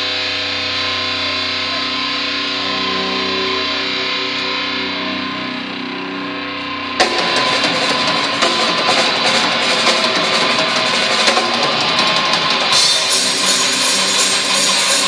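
Live heavy rock band playing: a distorted electric guitar holds sustained notes, then about halfway through the drums and full band crash in and play on, with cymbals brightening the sound near the end.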